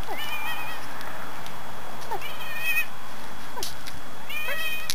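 Domestic cat meowing three times, about two seconds apart, each meow short and high-pitched.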